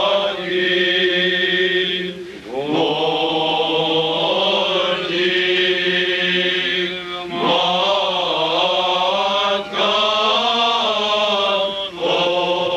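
Men's voices singing a liturgical chant in long, sustained phrases, with short breaths between phrases every two to three seconds.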